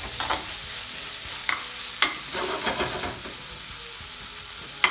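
Onion sizzling as it fries in oil in a pan, with a spoon stirring and knocking against the pan a few times, the last knock the loudest.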